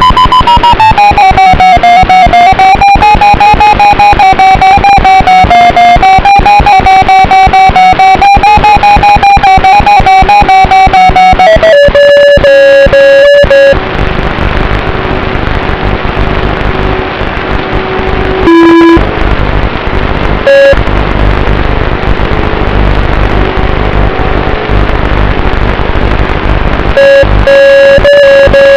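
Electric motor and propeller of an FPV model aircraft whining, its pitch wandering with the throttle and heavily distorted on the microphone. About 14 s in it gives way to loud wind noise, broken by brief bursts of the motor, and the whine returns near the end.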